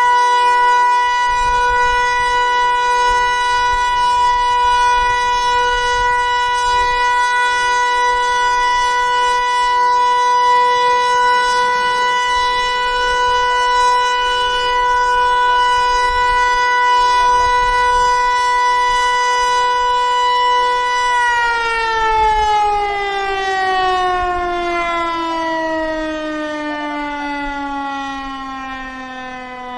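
Federal Signal Eclipse 8 electronic outdoor warning siren sounding a steady, unwavering tone: the Alert signal. About 21 seconds in, the pitch begins a slow, smooth fall and the sound grows quieter, as the siren winds down at the end of the signal.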